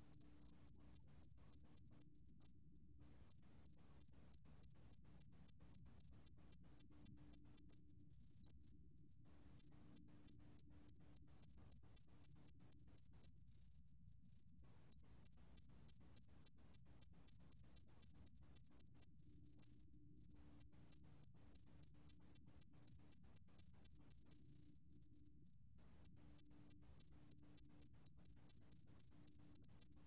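Sae-geumbit-jongdari cricket singing at 20 °C. Its high, thin song is a run of rapid pulses that close up into a continuous trill lasting about a second and a half, breaks off briefly, then starts again, about every five to six seconds.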